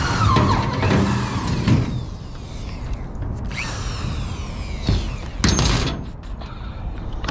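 Handheld power drill with a 1/4-inch bit boring a hole through the truck bed floor. The motor whines in spurts, its pitch rising and falling: a long run at the start, another about halfway through, and a short burst near the end.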